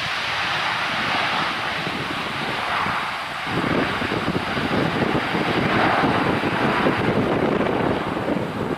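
Dash 8-400 twin turboprop airliner's engines running on the runway, a steady rushing drone that grows a little louder about halfway through. Wind buffets the microphone throughout.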